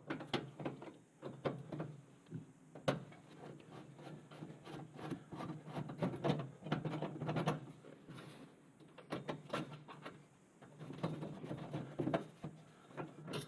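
A Phillips screwdriver backing out screws from the sheet-metal burner mount in a gas oven floor: faint, irregular metal clicks, ticks and scrapes as the screws turn and parts are handled.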